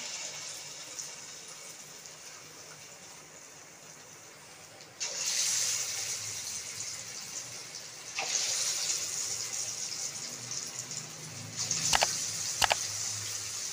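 Marinated chicken pieces sizzling in hot oil as they are dropped in one by one for deep-frying. The sizzle jumps sharply louder three times as more pieces go in, then eases a little. Two sharp clicks near the end.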